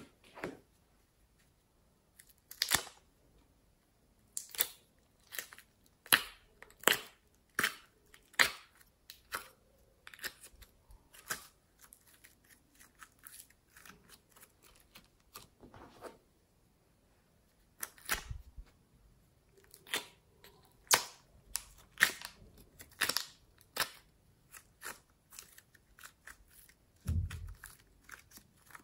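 Sticky slime and clay squeezed and pulled apart by hand, giving irregular sharp pops and crackles, some in quick runs, with a low thump near the end.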